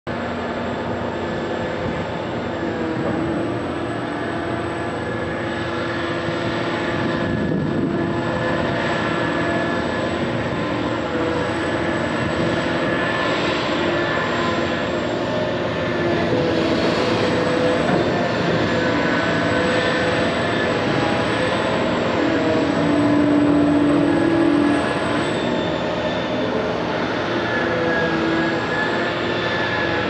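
Machinery of the Liebherr P995 backhoe dredger running steadily, with whining tones that shift in pitch as the boom swings. About halfway through, the bucket tips its load of wet dredged spoil into the hopper barge and the sound grows a little louder for several seconds.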